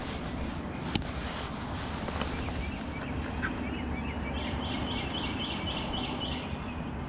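A bird calling a quick series of about eight short, high chirps, about four a second, over a steady low outdoor background. A single sharp click sounds about a second in.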